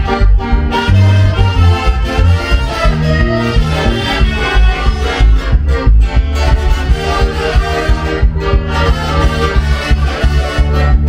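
A live orchestra playing Latin dance music, with a steady beat and heavy bass.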